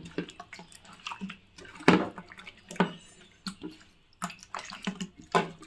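Irregular wet squishes and clicks as hands rub slimy stinging catfish with salt on a plate, working off the fish's slime. The loudest squish comes about two seconds in.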